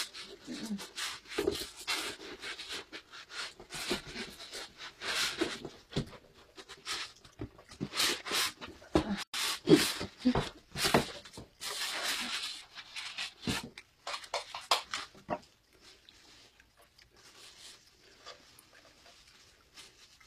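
A boxed gift being unpacked by hand: repeated irregular rustling, tearing and scraping of cardboard and packing, with a few short squeaks about ten seconds in. The handling grows fainter after about fifteen seconds in.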